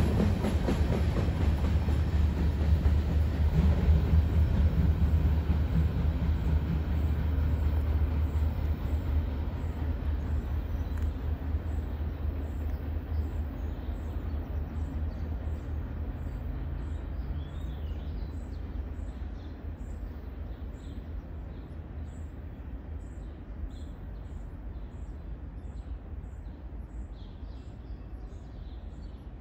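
Freight train rolling past and moving away, its steady rumble of steel wheels on rail fading steadily into the distance.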